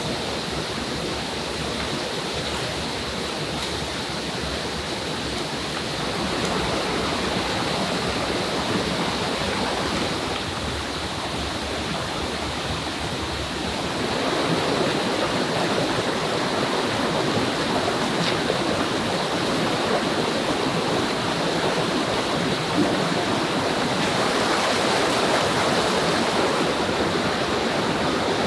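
Rushing water of a rocky forest stream, a steady rush that grows louder about six seconds in and again about fourteen seconds in.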